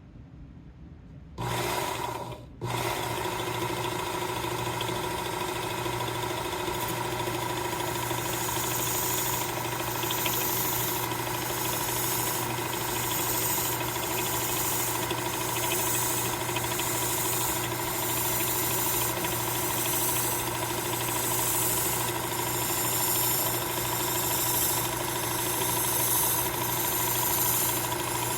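Work Sharp Knife and Tool Sharpener with its blade grinding attachment switching on about a second and a half in, cutting out for an instant and catching again, then running with a steady motor hum. From several seconds in, a serrated bread knife's edge is ground on the moving belt, a hissing grind that swells and fades in regular strokes about once a second as the blade is worked in and out of the scallops.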